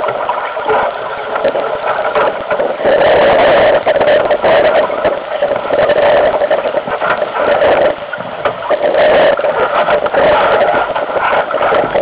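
Wind buffeting the microphone aboard a Solo sailing dinghy: a loud, rough rushing noise that swells and drops unevenly with the gusts.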